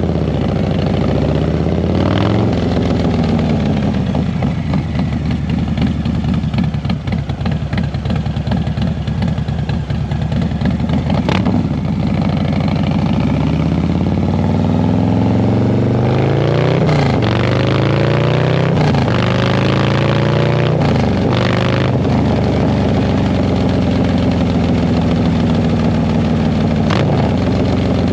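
Harley-Davidson Low Rider ST's Milwaukee-Eight V-twin, stage 2 with a Cyclerama 483 cam, running through an SP Concept big bore exhaust while riding. It pulls up through the gears, the pitch rising and dropping at each shift, with a few sharp crackles, then holds steady at cruise over wind and road rush.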